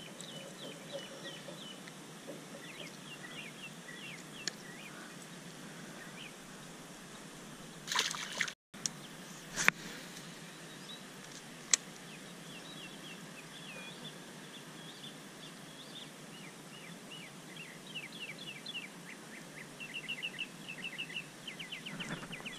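Small birds chirping, many short repeated chirps, busiest near the end. A brief scuffling burst about eight seconds in and two sharp clicks soon after stand out over them.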